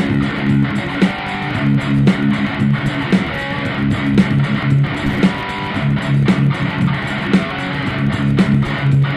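Background music: strummed electric guitar with bass and a steady beat.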